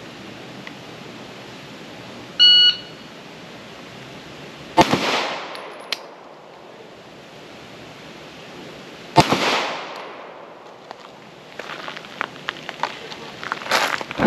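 A shot timer's start beep, then two 9mm Glock 19 pistol shots about four and a half seconds apart, each with a short echoing tail. Near the end, footsteps crunching on gravel.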